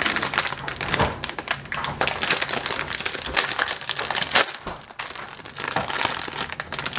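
Plastic wrapper of an instant-noodle packet crinkling as it is handled and pulled open by hand, with a sharp crackle about four seconds in.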